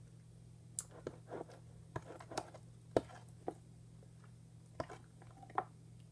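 Homemade glue slime being stirred with a plastic mixing tool in a plastic container: faint, irregular short clicks and smacks, about a dozen spread through, over a steady low hum.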